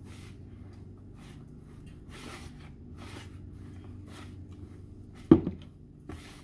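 Hands rubbing vegetable shortening into flour in a plastic mixing bowl: soft, repeated rustling swishes as the fat is worked in and its lumps broken up. A single sharp knock comes a little after five seconds in, with a fainter one about a second later.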